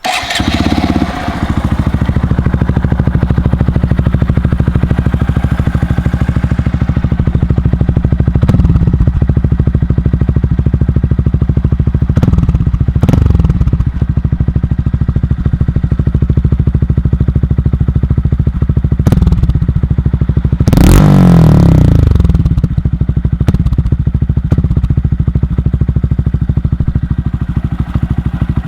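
Honda Monkey 125's single-cylinder engine through a Takegawa RS aftermarket exhaust, starting up and then running at a steady idle. Several short throttle blips break the idle, the biggest about two-thirds of the way through.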